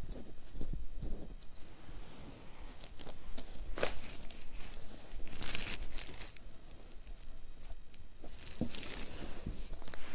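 Cotton cloth and the newspaper under it rustling and crinkling as the fabric is pulled taut on a board and fastened with metal binder clips, with a few sharp clicks and knocks among the rustling.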